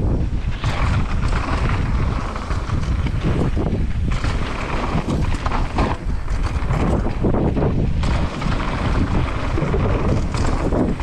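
Wind buffeting the microphone of a camera on a downhill mountain bike descending at speed, over a steady rumble of tyres on a dirt trail and frequent irregular knocks and rattles from the bike over rough ground.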